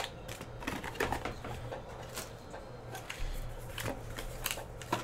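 Cardboard box insert and paper packing being pulled out and handled, with scattered light rustles and taps.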